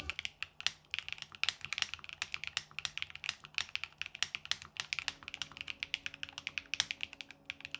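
Steady, fast typing on a Constance TKL mechanical keyboard with an aluminium plate and KKB Violet Alert keycaps: a dense run of quick key clicks, several to the second.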